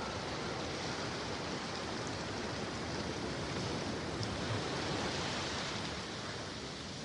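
Steady, even rushing noise with no tones or rhythm.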